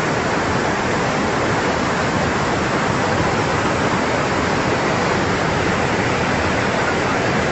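Floodwater rushing steadily, a continuous even noise of fast-flowing water.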